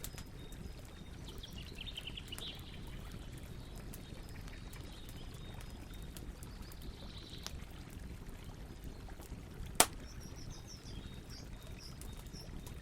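Campfire burning with a steady low rush and scattered crackles, with one sharp loud pop about ten seconds in. Faint bird chirps come in around two seconds in and again near the end.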